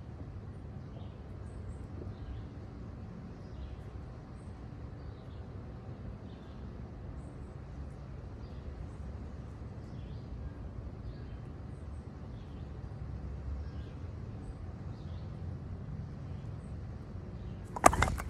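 Outdoor ambience, a steady low rumble with faint scattered bird chirps, then near the end one sharp, loud clattering crash as the flat stone slab of a deadfall trap drops onto its sticks and the ground.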